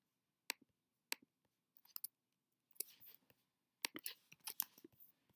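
Faint clicks of a computer keyboard and mouse: single clicks about a second apart, then a quick run of keystrokes about four seconds in.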